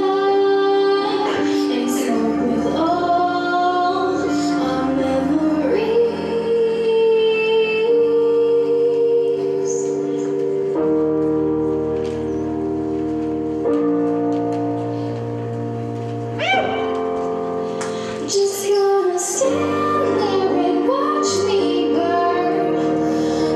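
Music with a woman singing over held accompaniment chords.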